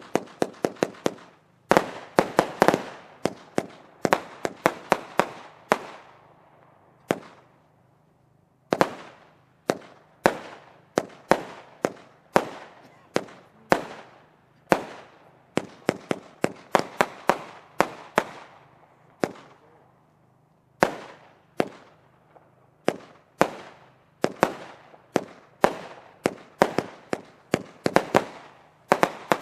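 WECO Paralyzer, a 39-shot 25 mm firework cake, firing its shells one after another: a rapid, irregular string of sharp bangs as the shells launch and burst, with two brief lulls.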